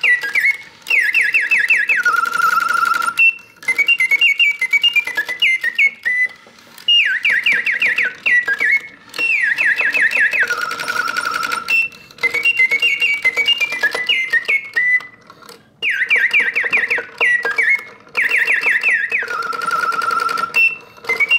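Late-1800s Bontems double singing bird cage's clockwork bellows-and-whistle movement running and playing its mechanical birdsong. It repeats phrases of rapid falling trills, some ending in a held lower note, with short chirps between and brief pauses, over a faint mechanical whirr.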